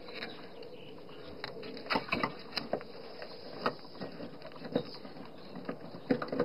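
Scattered clicks and light plastic knocks, about a dozen irregular strokes, as a flat screwdriver pries and wiggles at the plastic electrical connector of an EVAP purge solenoid. Underneath is a steady background noise.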